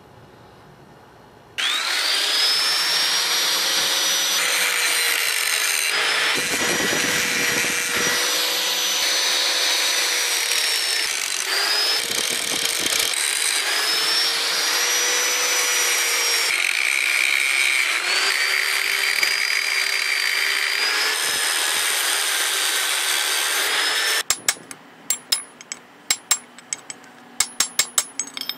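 Angle grinder cutting into a solid cast-aluminum piece, its motor whine sagging and recovering again and again as the disc bites. About 24 seconds in it stops and a quick irregular series of sharp metal taps follows, a hammer striking a steel punch held against the casting.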